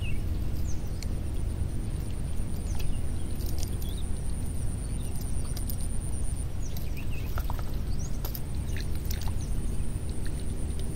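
Outdoor ambience: a steady low background rumble, with short bird chirps scattered throughout.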